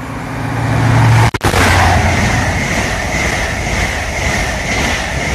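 InterCity 125 (HST) passing through the station at speed: the diesel power car's engine hum swells over the first second, then the steady loud rush and rumble of the coaches going by. The sound cuts out briefly about a second and a half in.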